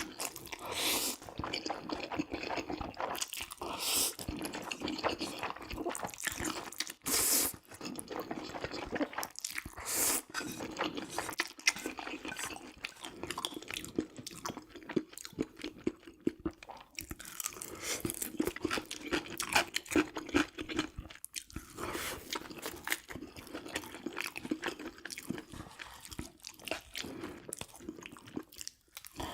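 Close-miked eating: crunchy bites and chewing, with dense crackles and wet mouth sounds that come and go.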